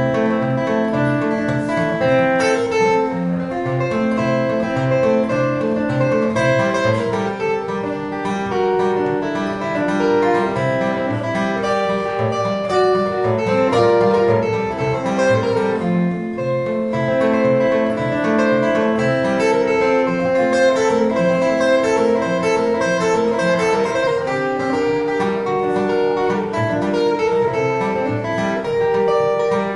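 Acoustic guitar played solo as an instrumental break in a country song, with no singing.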